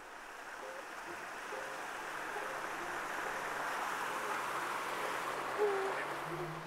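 Outdoor nature ambience: a steady hiss that fades in and slowly swells, with a few short, low hooting bird calls, one about five and a half seconds in.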